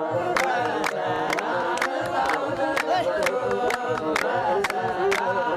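A group of voices singing or chanting together over a steady drum beat of about three strikes a second.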